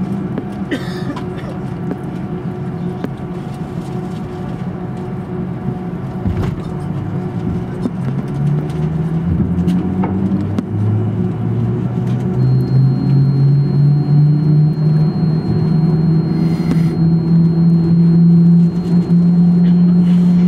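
Airbus A330-300's Rolls-Royce Trent 700 engines heard from inside the cabin, running at low power as the jet begins to taxi. From about eight seconds in, the engine tone rises in pitch and grows louder as thrust is added, and a thin steady high whine joins partway through.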